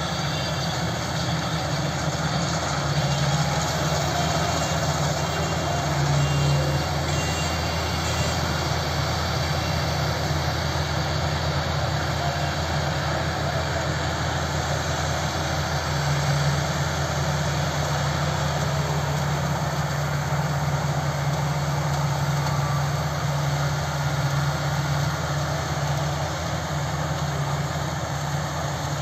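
GAM combine harvester running steadily as it cuts rice: a constant low engine drone under an even mechanical noise from the cutting and threshing machinery, swelling slightly a few seconds in and again about halfway.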